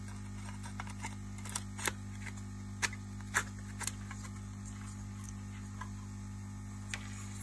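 Steady electrical mains hum, with a few faint clicks and taps as the amplifier's aluminium case and metal cover plate are handled and slid together.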